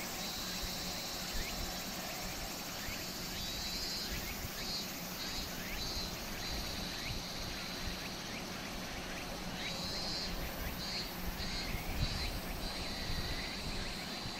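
Insects chirring in a high band that comes and goes in repeated pulses, over a steady low rumble with a faint hum.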